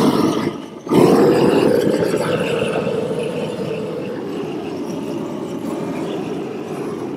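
Propane hand torch burning with a steady rushing noise as it heats bitumen membrane flashing to melt the seam. The flame noise drops out briefly a little under a second in, then comes back and slowly eases off.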